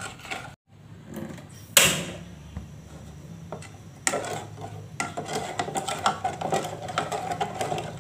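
A plastic spoon stirring and scraping in an aluminium saucepan of liquid agar mixture, with many short clicks and scrapes against the pot's sides from about halfway on. A single loud knock about two seconds in.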